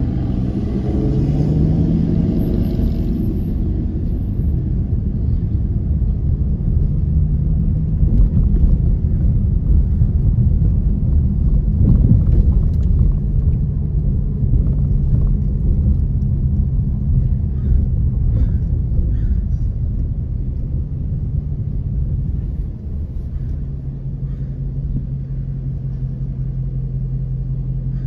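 Engine and road rumble heard inside a car's cabin as it drives slowly, with a brief rise in engine pitch in the first couple of seconds. About 23 seconds in the rumble drops and settles to a steadier low engine hum as the car comes to a stop and idles.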